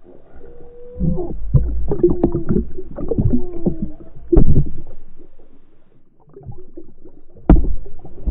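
Muffled water splashing and sloshing with irregular sharp knocks and low thumps, as seagulls go for a fishing lure at the surface. Several short sliding calls, muffled seagull calls, come through between the splashes. The loudest knocks are about four and a half seconds in and again near the end.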